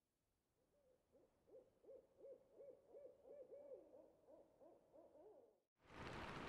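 A faint run of about a dozen short hooting notes, evenly spaced at roughly three a second and quickening slightly toward the end.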